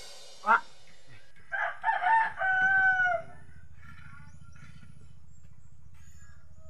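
A rooster crowing once, starting about a second and a half in, the call held and falling away at its end. A sharp knock sounds just before it.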